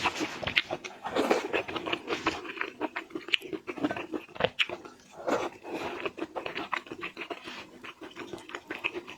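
Close-miked chewing and crunching of seafood, with irregular wet mouth clicks and a few louder crunches.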